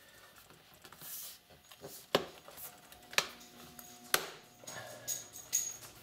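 Snap-in clips of a Dell Inspiron 15 5578 laptop's bottom cover clicking into place as the panel is pressed down by hand. Three sharp clicks about a second apart, then a few lighter clicks near the end.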